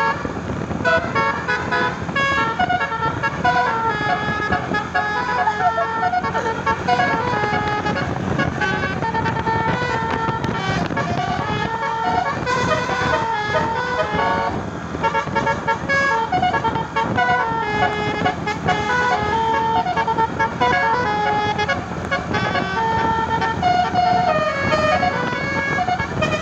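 Tour bus's musical 'telolet' air horn playing a fast melody of short stepped notes, over the rumble of engine and road noise.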